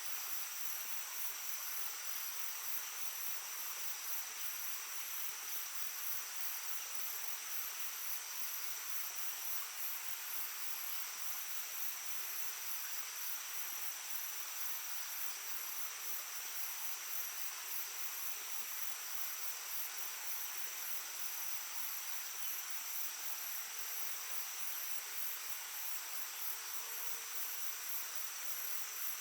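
Shallow stream babbling steadily, with insects trilling continuously in a high pitch above the water.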